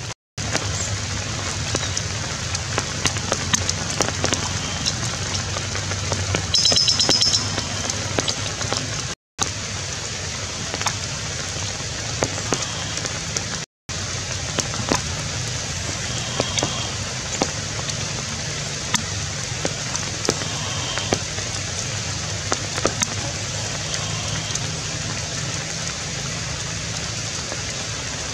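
Steady rain falling through the forest canopy, with sharp drips throughout. A short run of rapid, high chirping comes about seven seconds in. The whole sound cuts out for a moment three times.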